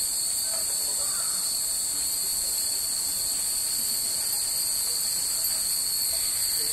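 Cicadas droning steadily in the trees, an unbroken high-pitched chorus.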